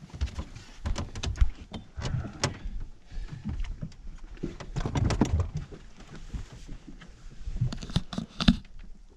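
Irregular knocks, bumps and rattles of gear and feet on a fishing boat's deck and gunwale as a man kneels and reaches over the side with a landing net, with one sharper knock near the end.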